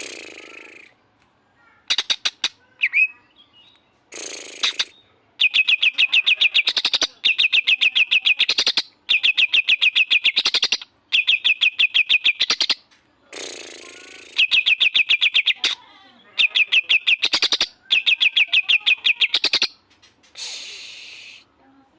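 Cucak ijo (green leafbird) singing a 'kapas tembak' filler it has learned: repeated bursts of rapid, evenly spaced high notes at about ten a second, each burst lasting about a second and a half and rising at the end. A few short harsh, raspy notes come between the bursts.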